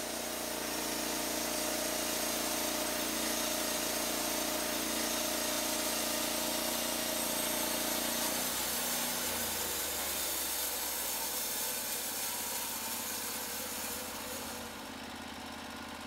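Norwood LumberPro HD36 portable band sawmill running, its engine steady under load as the band blade saws through a squared log. A little past halfway the engine note shifts lower, and the sawing noise fades out near the end as the cut finishes.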